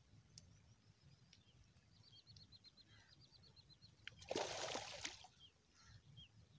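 Brief splash of water about four seconds in, from hands working in the shallow water at the shoreline. Before it a small bird faintly trills a quick run of repeated high notes.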